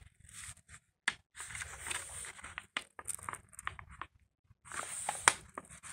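Crinkling and rustling of the plastic-coated protective release sheet on a diamond painting canvas as it is lifted and handled by hand, with a few sharp crackles.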